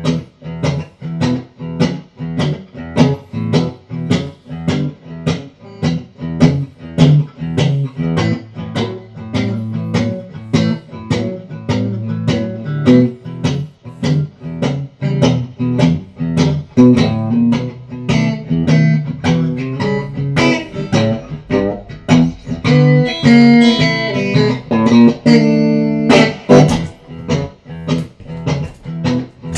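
Telecaster-style electric guitar played through a Hughes & Kettner StompMan amp pedal into a small Marshall cabinet with a 10-inch speaker: a blues with a steady rhythm of picked chords and bass notes, turning to busier single-note lines higher up about three-quarters of the way through.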